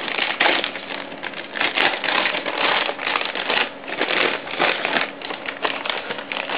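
Metallic anti-static bag crinkling and rustling in a hand as the graphics card inside it is lifted out of its box, a dense, uneven run of crackly rustles.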